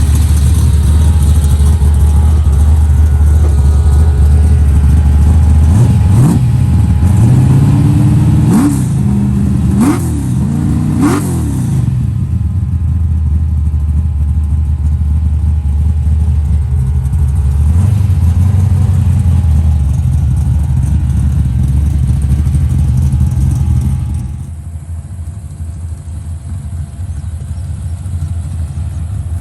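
Car engine running with a heavy low drone, blipped in four or five quick revs between about six and twelve seconds in, the pitch climbing and falling each time. It drops noticeably quieter about twenty-four seconds in.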